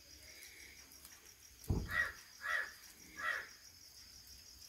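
Goat giving three short, harsh bleats in quick succession, just after a low thump, over a steady chirping of crickets.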